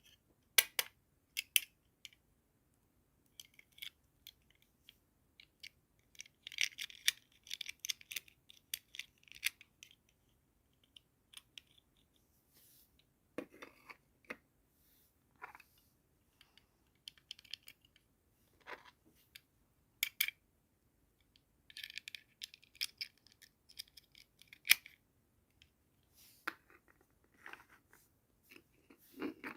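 Hands handling a doll set's plastic packaging and small pieces: scattered sharp plastic clicks and taps, with bursts of crinkling and rustling between pauses.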